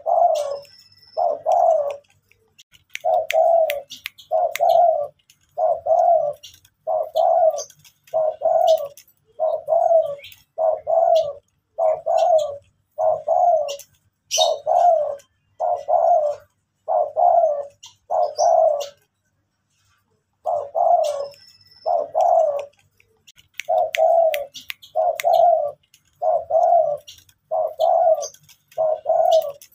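Spotted dove cooing in a long, steady run of short coos, about one a second, with a pause of a second or two about two-thirds of the way through.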